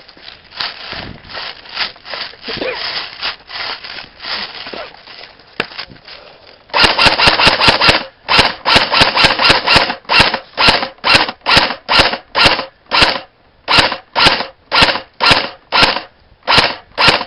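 Airsoft rifle fired close to the microphone: a rapid full-auto burst of about a second, then steady single shots about three a second. Before it there is a few seconds of rustling movement.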